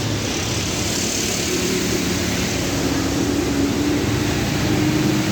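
A motor vehicle's engine running steadily under a rushing noise, its tone drifting slightly in pitch.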